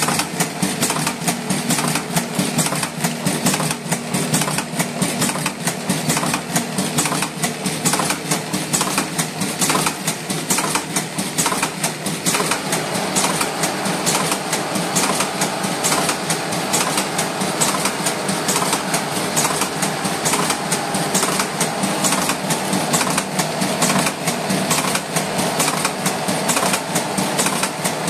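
Cigarette rolling machine running, a steady, rapid mechanical clatter of repeating clicks; about halfway through a steady hum joins it.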